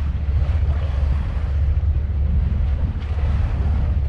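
Wind buffeting the camera microphone: a steady, loud low rumble.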